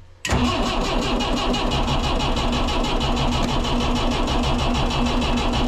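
Starter cranking the lifeboat's inboard engine, a fast, even beat of compression strokes that sets in suddenly about a quarter second in; the engine turns over without catching.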